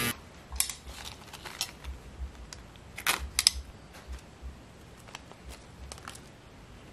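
Small metal carburetor parts (screws, needles, small fittings) clicking and tapping as they are handled and set down on a shop towel. The light clicks are irregular, with a louder cluster about three seconds in.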